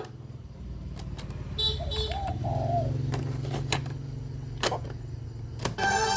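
Radio receiver tuned between stations: a steady low hum with scattered sharp clicks and, about halfway through, a brief faint warbling fragment.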